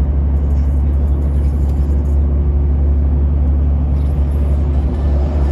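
Steady low drone of a Volvo semi-truck at highway speed, heard inside the cab: engine and road noise.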